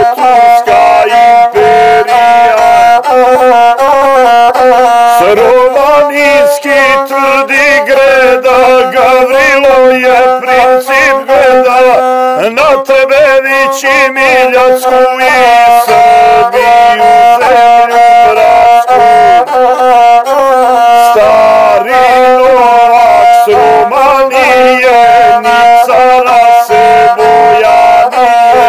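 Gusle, the single-string bowed fiddle of the epic-song tradition, played solo. It plays a melody that keeps returning to one held note, decorated with quick trills and slides.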